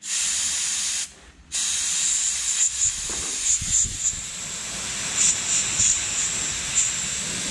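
Compressed air hissing from a handheld air blow gun aimed at a spark plug, blowing wire-brush dust and carbon crumbs out of it: a blast of about a second, a short pause, then one long continuous blast.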